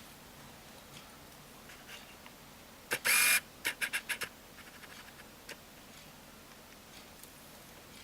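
Small repair tools and phone parts handled on a work surface: one short scrape about three seconds in, followed by a few light clicks.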